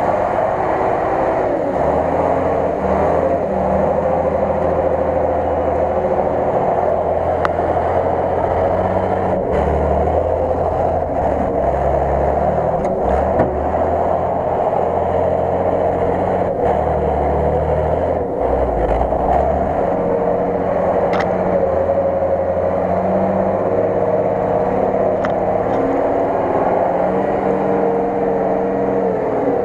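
Engine of a heavy off-road truck on large mud tyres, running under load and changing pitch as it drives through deep muddy water and up a muddy slope.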